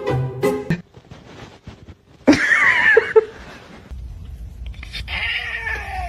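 A cat yowling: a loud, wavering cry about two seconds in, then a second cry that falls in pitch over a low rumble near the end.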